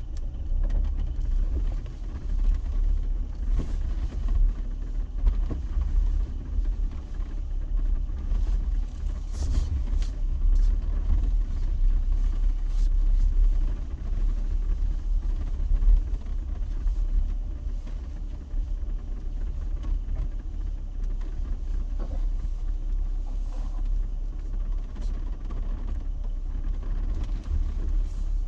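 Jeep driving off-road: a steady low engine and road rumble, with a few sharp knocks.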